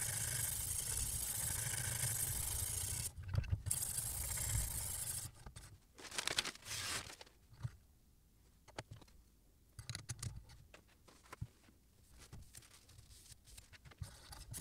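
Handling clicks, taps and short scrapes as a sharpening stone is swapped in the metal stone holder on the guide rod of a Sy Tools S09 guided knife sharpener, changing to an 800-grit diamond stone. A steady hiss fills the first few seconds, and the louder scrapes come around the middle.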